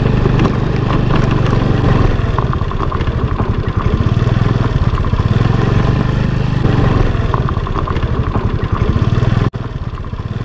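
Scooter engine running as it rides a rough gravel dirt track, with fast rattling from the bumps. The sound drops abruptly near the end.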